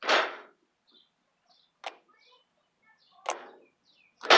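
Slime being squeezed and worked by hand, making a few short squishy pops and clicks with quiet between them, the last the loudest.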